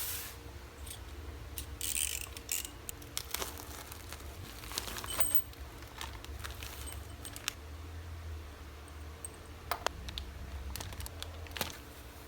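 Handling noises of unboxing metal motorcycle bar ends: plastic packaging crinkling and small metal parts clicking and clinking at irregular moments, over a low steady hum.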